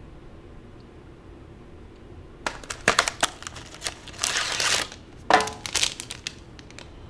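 A cardboard snack box being opened and its foil inner packet handled, with crinkling, crackling and short clicks starting a couple of seconds in and a longer steady rustle in the middle.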